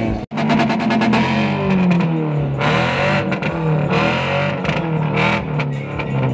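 Loud music with guitar, cut off for an instant about a third of a second in.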